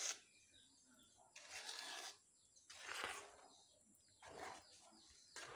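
A spoon stirring and scraping thick, cooked-down ube halaya paste in an aluminium pan: faint swishing strokes, roughly one every second and a half.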